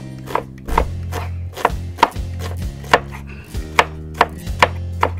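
Large chef's knife chopping onion on a wooden cutting board, sharp even strikes about two to three a second.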